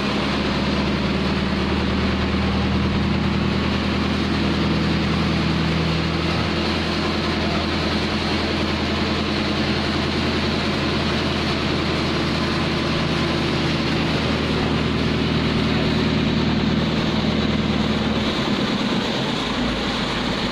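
Diesel engine of a JCB Liftall mobile crane running steadily while the crane moves with a suspended load; the low engine hum changes near the end.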